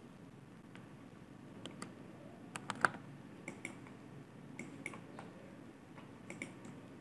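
Faint, scattered clicks of a computer keyboard and mouse, a few at a time, often in quick pairs, over a low room hum.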